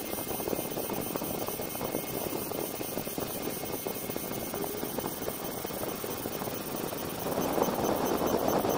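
Fiber laser marking machine running while raster-engraving a photo into a coated metal plate: a steady noisy hum with a fine crackle, getting louder about seven seconds in.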